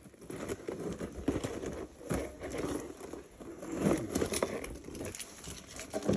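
Foil wrapper of a Pokémon booster pack crinkling and rustling as it is handled, in irregular bursts.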